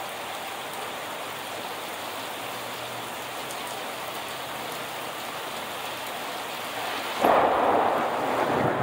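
Steady heavy rain pouring down, then about seven seconds in a sudden loud thunderclap that goes on rumbling.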